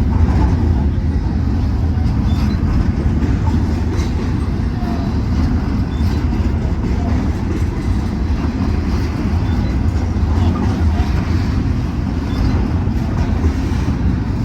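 BNSF intermodal freight train rolling past, a steady rumble of steel wheels on rail with faint scattered ticks.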